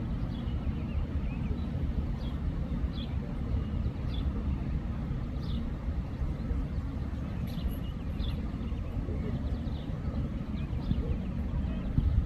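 Outdoor ambience: a steady low rumble with scattered faint high chirps or distant calls.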